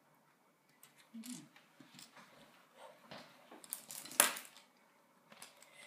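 Small handling noises: scattered clicks and rustles, with one louder crinkling rustle about four seconds in.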